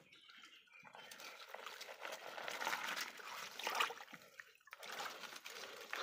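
Quiet, irregular sloshing and trickling of shallow stream water around bare feet wading in it, with small splashes.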